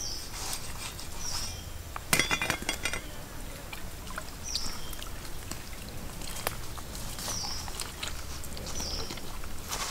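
Stream water trickling around a raw plucked chicken as it is scraped and rubbed by hand, with a short burst of scraping clicks about two seconds in. A bird's short high chirp repeats about five times.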